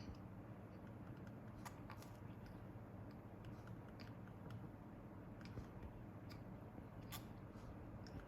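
Faint steady room hum with a handful of small scattered clicks and taps, the sharpest about seven seconds in.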